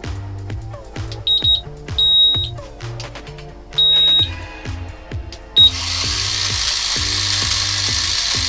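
Background music with a steady beat, cut by a few short, high electronic beeps; then, about six seconds in, the Holy Stone HS155 drone's motors and propellers start up into a steady whir.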